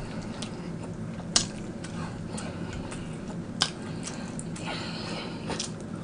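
Close-up eating sounds: a plastic fork clicking and scraping on a plate as spaghetti is twirled and lifted, with two sharp clicks about two seconds apart, then mouth sounds as the forkful is eaten near the end.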